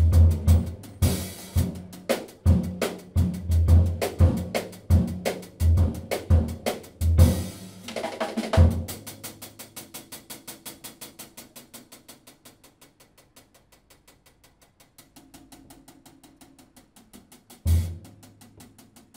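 Jazz drum kit played live: a busy pattern of heavy low hits over rapid, evenly spaced taps for about the first half, then dropping to soft quick taps alone, with one more heavy hit near the end.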